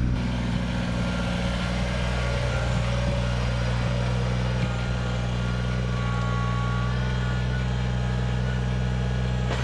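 Kubota BX25D subcompact tractor's three-cylinder diesel engine running at a steady, unchanging speed.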